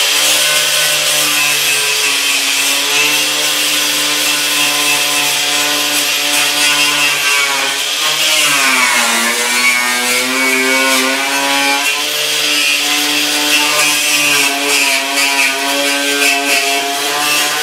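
Angle grinder with a twisted wire wheel running continuously, scrubbing rust off a steel body panel. The motor whine sags in pitch about eight seconds in, then climbs back.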